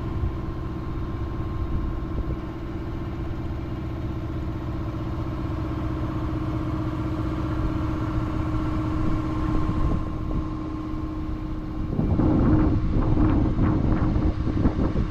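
A small sailboat's engine running steadily under way, a constant drone with a steady hum. About twelve seconds in, a louder, uneven rushing noise joins it.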